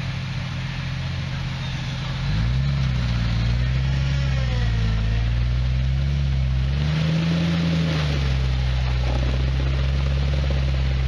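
Off-road vehicle's engine idling, then revved up about two seconds in. It rises and falls under changing throttle, is highest around two-thirds of the way through, then holds at a steady higher speed.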